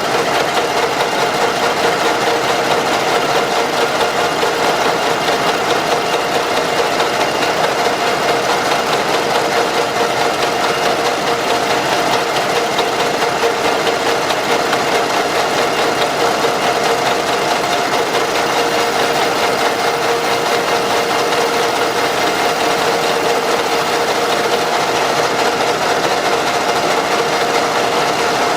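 Machine tool's electric motor running steadily, with an even noise and two steady tones, while a camshaft end plug is being machined down by half a millimetre.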